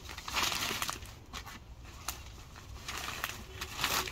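Silk cotton saree fabric rustling as it is handled and folded, in irregular bursts, louder about half a second in and again near the end.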